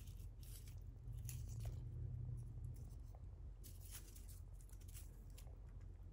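Soft intermittent rustling and scratching, a few short scrapes a second or so apart, over a low steady hum.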